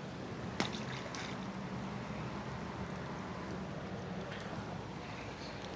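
Steady rushing outdoor background noise with a faint low hum under it, and a single sharp click about half a second in.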